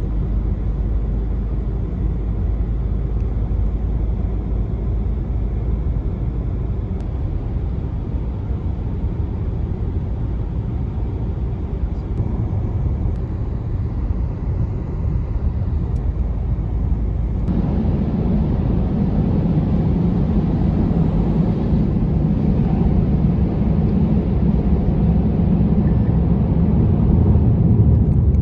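Steady road and engine noise of a car driving, which gets louder and fuller about seventeen seconds in.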